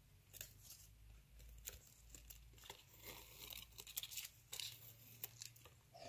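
Washi tape being peeled off the edges of a watercolour card: faint, scattered crackling and ticking as the tape lifts away from the paper.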